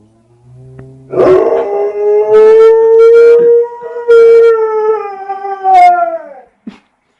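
Dog howling: one long, loud howl starting about a second in. Its pitch rises slightly, then sinks as it trails off near the end.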